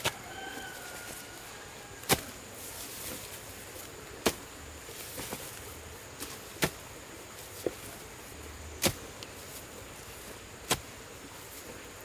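Hand hoe chopping into clods of field soil: six sharp strikes, one about every two seconds.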